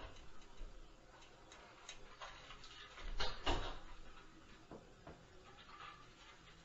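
Scattered light knocks and clicks, with a heavier thud and a cluster of sharper knocks about three seconds in.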